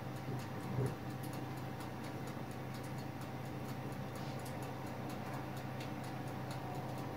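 A steady run of faint, evenly spaced ticks over a steady low hum, with a soft knock about a second in.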